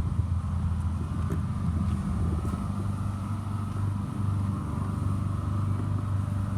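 A vehicle engine running steadily at idle, a low even drone that neither rises nor falls.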